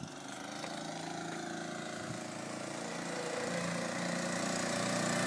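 Small 200cc Honda engine of an Amica 1000 microcar catching and then running steadily, with a lawn-mower-like note. It grows gradually louder across the few seconds.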